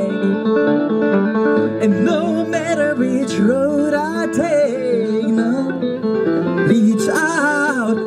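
Live music: a man singing with his own resonator guitar.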